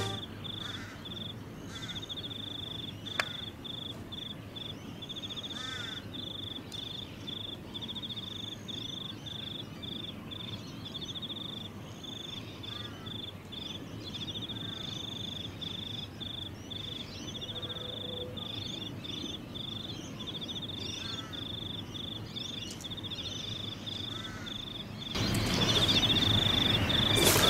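Insects trilling in a steady pulsing rhythm at one high pitch, with faint bird chirps over quiet outdoor ambience. There is a single sharp click about three seconds in, and a louder rush of noise starts near the end.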